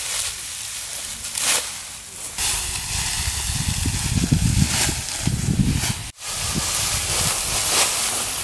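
Dry, cut rice straw rustling and crackling as it is scooped up and gathered by hand into bundles, with louder swishes as armfuls are lifted.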